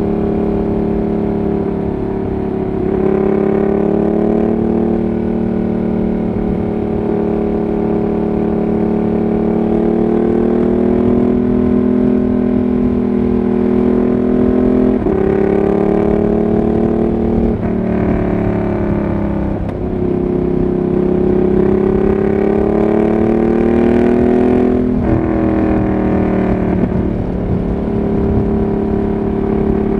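Ducati Monster 1200R's L-twin engine running through an SC Project exhaust at highway cruising speed, heard from the rider's seat with wind rushing over the microphone. The exhaust note holds steady and creeps up in pitch under throttle, and dips and recovers a few times, about halfway through and again near the end.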